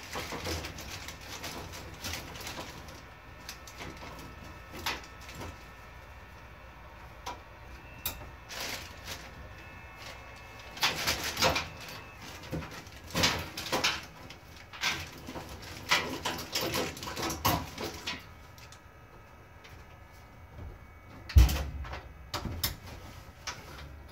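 Hands handling network cables and hardware in a wall-mounted wiring panel: irregular clicks, rustles and knocks, with one loud knock near the end.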